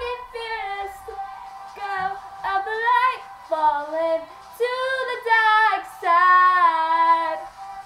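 A young girl singing a pop song solo in phrases, ending on a long held note near the end.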